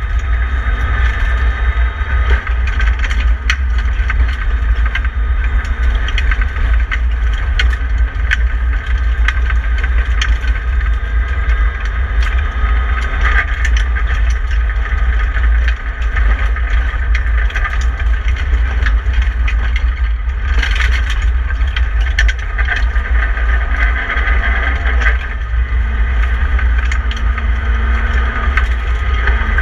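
BMW E30 318i rally car's four-cylinder engine running hard on a gravel stage, heard from inside the cabin over a heavy road rumble, with frequent sharp ticks of stones and gravel hitting the car.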